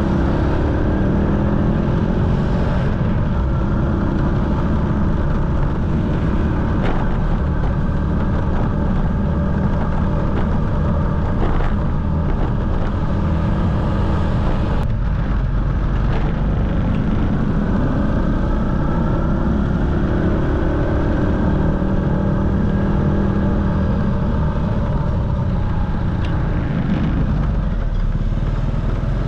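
Motorcycle engine running on the move, its pitch rising and falling several times with throttle and speed. A heavy rumble of wind on the microphone sits under it, with a few brief knocks.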